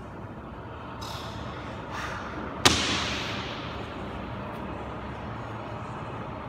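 A person coming down off a wall handstand: faint scuffs, then one sharp thud of feet landing on the rubber gym floor about two and a half seconds in, echoing briefly in the room.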